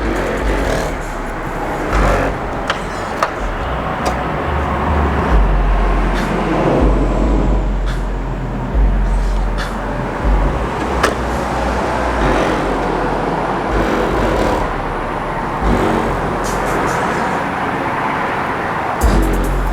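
A beat playing through a car audio system with a single Skar 15-inch SDR subwoofer, deep bass notes switching on and off in time under sharp drum hits.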